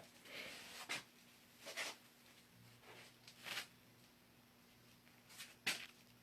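Faint handling noises: a few short rustling swishes and a couple of sharp clicks, with a low steady hum underneath.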